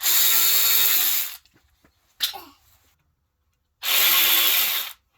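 Cordless battery ratchet spinning a bolt out of a BMW M52 engine block, run in two bursts of about a second each, a couple of seconds apart.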